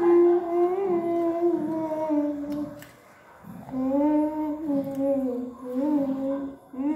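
A girl humming a tune in long held notes, with a short break partway through.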